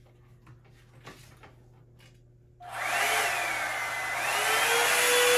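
Handheld hair dryer switched on about two and a half seconds in after a few faint handling clicks, then blowing steadily: a loud rush of air over a motor whine that rises, dips and then holds steady.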